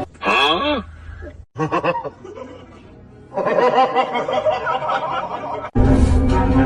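Snickering laughter and music, broken by abrupt cuts between short clips.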